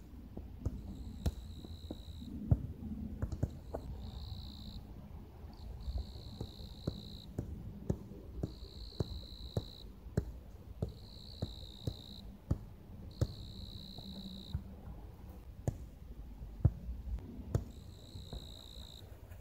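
Bell crickets (suzumushi) singing in ringing bouts of about a second, a second or two apart, over soft taps of a football being juggled on the feet and knees, about two touches a second.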